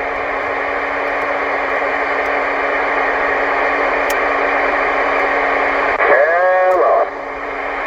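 CB radio receiver hissing with an open carrier: a steady, bandwidth-limited rush of static with a low steady hum under it. About six seconds in, a brief pitched tone rises and falls for about a second before the hiss returns.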